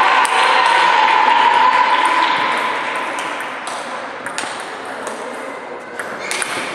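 Table tennis rally: sharp clicks of the celluloid ball off rubber-faced paddles and the table, several in the second half. A steady high ringing tone is the loudest thing at first and fades over the first few seconds.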